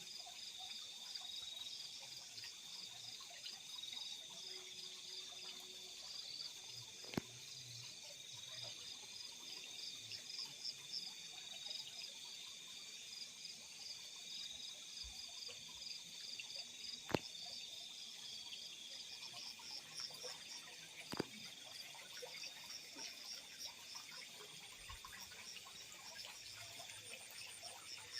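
A night chorus of field crickets: a steady high trill overlaid with rapid pulsed chirping. Three sharp clicks stand out, about 7, 17 and 21 seconds in.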